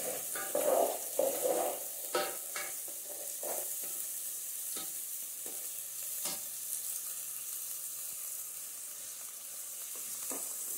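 Chopped onion frying in oil in a metal pot with a steady sizzle, while a plastic spatula stirs it and scrapes and knocks against the pot. The stirring is busiest in the first three seconds, then comes only now and then.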